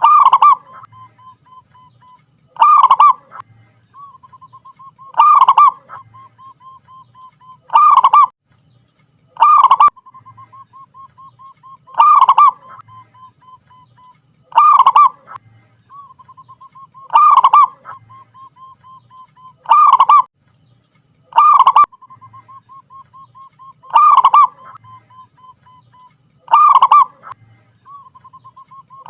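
Zebra dove (perkutut) cooing: a loud call about every two and a half seconds, with a soft, fast chain of notes at one pitch between the calls.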